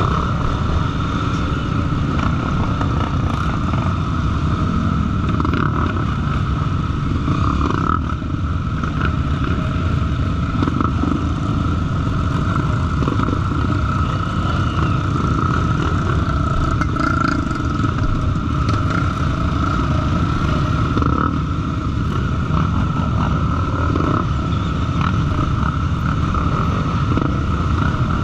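Motor vehicle engine running steadily under a continuous low rumble, with no marked revving or stops.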